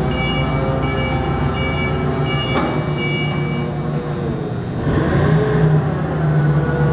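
Laden forklift's engine running steadily as it drives, with its warning beeper sounding in regular high-pitched pulses that stop about four seconds in. A little after that the engine grows louder with a brief rushing noise, and then it runs on at a higher level.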